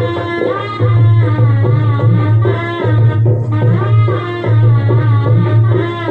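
Instrumental Marathi song accompaniment with tabla: a wavering, gliding melody line over a steady low note, no singing.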